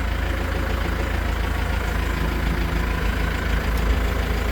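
Tractor engine idling steadily, with the air conditioning running after a refrigerant recharge.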